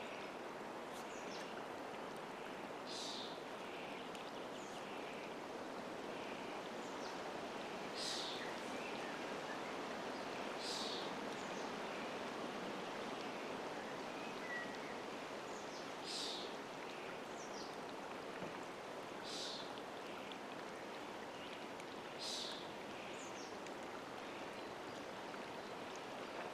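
Lake water lapping steadily at the shore, with short high bird calls every few seconds.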